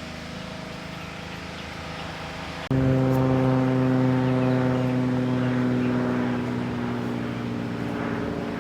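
A steady engine drone holding one pitch, jumping much louder about a third of the way in and then slowly fading.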